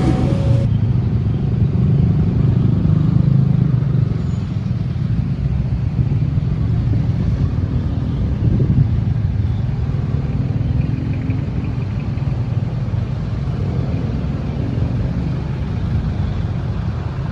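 Steady low engine rumble from a vehicle. A two-tone horn note cuts off abruptly just under a second in.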